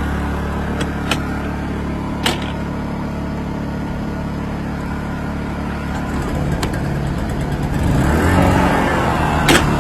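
Two Honda EU2000i inverter generators running with a steady hum, with a few sharp clicks; near the end the engine note wavers and grows a little louder.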